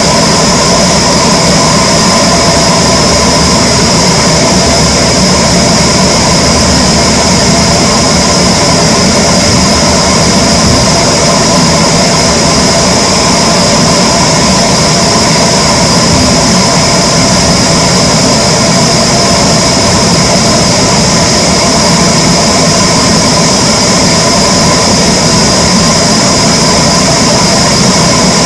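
Wood-cutting power saw machinery running loudly and steadily, with a constant high whine over a broad machine noise that does not change.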